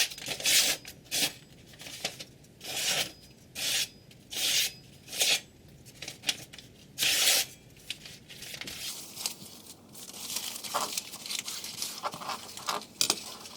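Kitchen knife blade making a series of short scraping strokes, about nine, irregularly spaced, followed by a few seconds of fainter scratching.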